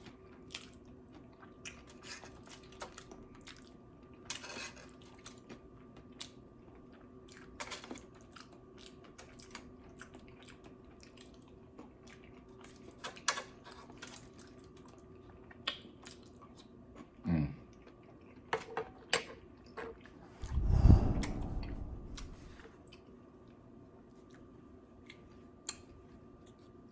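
Close-miked chewing, with scattered small crunches and clicks from food and utensils. About 21 seconds in there is a louder low thump.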